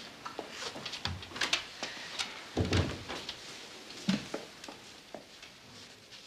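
Scattered light knocks and shuffles of people settling at an office desk: a chair being moved and sat in, with a duller thump a little under three seconds in and another about four seconds in, and papers being handled.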